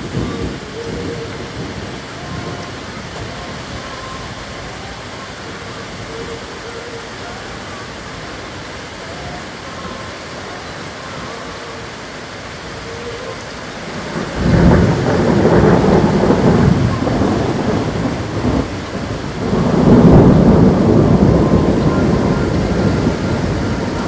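Thunderstorm with steady rain falling. A loud rumble of thunder breaks in a little past halfway, and a second, louder peal follows about five seconds later and slowly fades.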